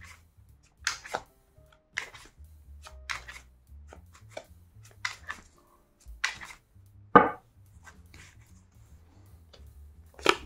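A deck of Hermetic Tarot cards being shuffled by hand, the cards slapping together in short crisp strokes about once a second, with a heavier slap about seven seconds in.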